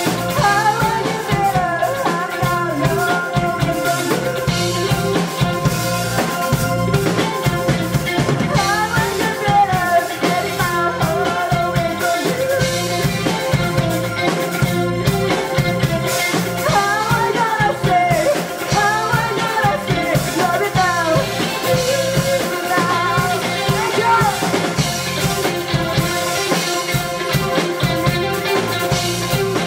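Live rock band playing: electric guitars, bass guitar and drum kit, with a male lead voice singing at times.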